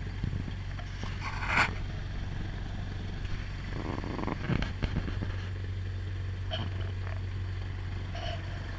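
Cessna 172P's four-cylinder Lycoming O-320 engine running at low taxi power, a steady low drone heard from inside the cabin. A brief sharp rattle comes about a second and a half in, and a few softer knocks follow.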